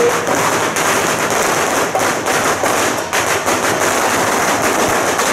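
A string of firecrackers going off in a dense, continuous crackle.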